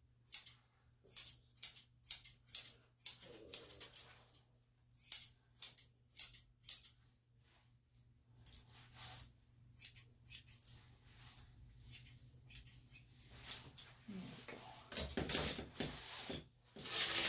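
Steel grooming scissors snipping a Lhasa Apso's face and head hair: a quick run of crisp metallic snips for the first seven seconds or so, then sparser snips. Near the end come louder handling sounds as the dog is held and moved.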